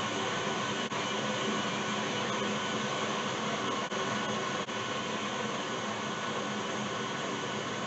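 A small electric motor running steadily, an even whirring hum that dips briefly three times.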